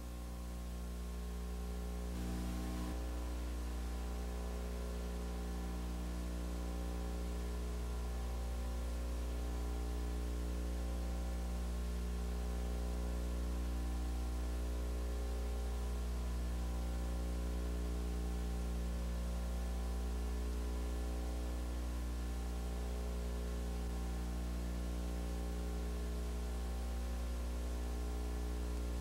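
Steady electrical mains hum with many evenly spaced overtones, over a constant hiss of line noise.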